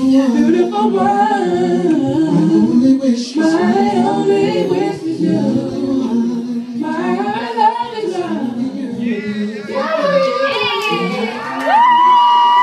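A singing voice carrying a melodic hook in short rising and falling phrases, without rapped words, ending on a long high held note near the end.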